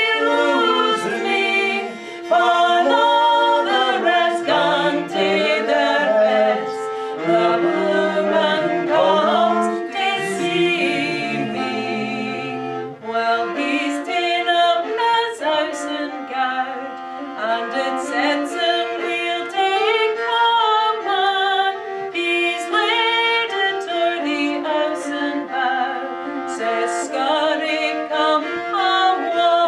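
Women singing a Scottish bothy ballad in harmony, with a bowed fiddle accompanying them throughout.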